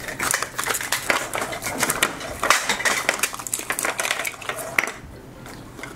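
Hollow plastic clicks and clatter from a Zuru 5 Surprise Mini Brands plastic capsule ball being handled and opened, mixed with crinkling of its foil wrappers. It dies down about five seconds in.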